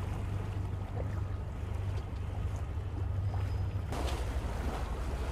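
A boat's engine gives a low steady drone under a hiss of wind and water; the sound shifts about four seconds in.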